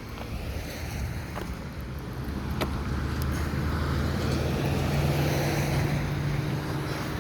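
A car passing on the street, its engine hum and tyre noise slowly growing louder to a peak about five seconds in, then easing slightly.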